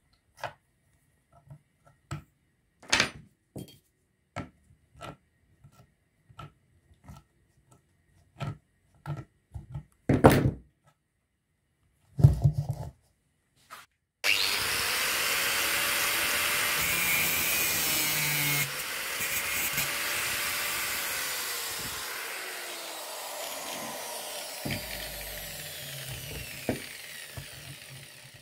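Hand tools working on the pump motor's housing bolts: sparse metallic clicks and knocks of a spanner on the nuts, with a few louder knocks. About halfway a loud, steady rushing noise starts suddenly, drops a little a few seconds later and then slowly fades.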